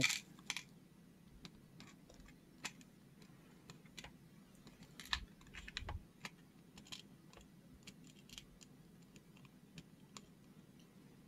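Faint, irregular small clicks and crinkles of a clear plastic parts tray and bag being handled, with tiny model-car wheels and metal axles being picked out by the fingers.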